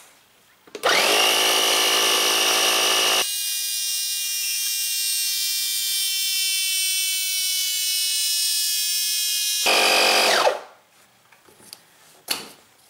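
Small electric air compressor inflating a mini bike tire to 15 PSI through a hose clipped to the valve stem. The motor spins up about a second in, runs steadily with a slight drop in level a few seconds in, then winds down near the end, followed by a few light clicks as the hose is handled at the valve.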